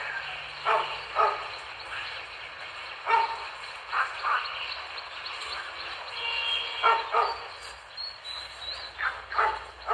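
A dog barking repeatedly, short barks in ones and twos every second or two, over a steady hiss of heavy rain.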